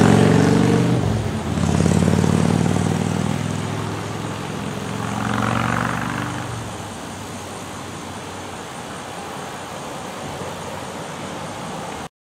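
Cars and a pickup truck driving past over a railroad crossing one after another: engine hum loudest in the first few seconds, a second vehicle's tyre and engine noise swelling and fading around halfway, then a lower steady road noise until the sound cuts off just before the end.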